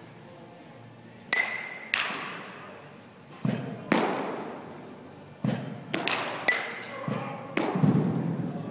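Metal baseball bat hitting baseballs, with the balls then striking the net: a series of about nine sharp knocks and thuds at irregular intervals, echoing in a large indoor hall. Two of the hits carry a short metallic ping.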